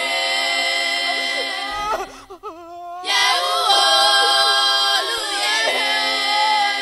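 Voices singing long held notes with some sliding pitch, dropping out briefly about two seconds in and resuming about a second later.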